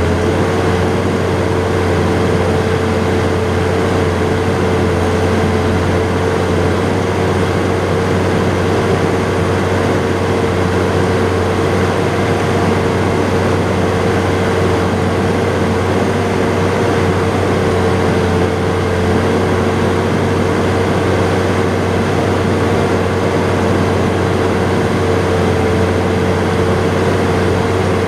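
John Deere 7800 tractor's six-cylinder turbo diesel running steadily at constant revs, heard from inside the cab, with a low drone and a steady whine over it.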